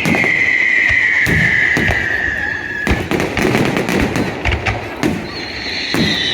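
Fireworks display: a whistling firework with a slowly falling pitch that cuts off with a bang about three seconds in, amid repeated bangs and crackles. A second falling whistle starts near the end.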